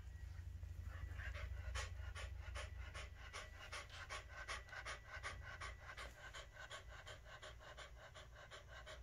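Shih Tzu–Corgi mix dog panting fast with its tongue out, about four breaths a second, starting about a second in, out of breath after rough play with a toy.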